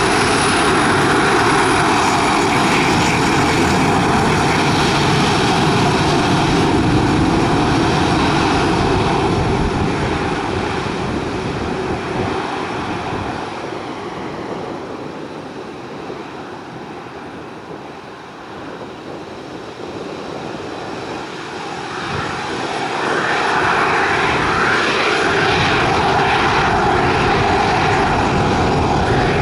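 Boeing 737-500's twin CFM56-3 turbofan engines running at taxi power, a steady jet whine over a broad rush. The sound fades through the middle as the jet turns its tail away, then swells back about three quarters of the way in as it comes round broadside again.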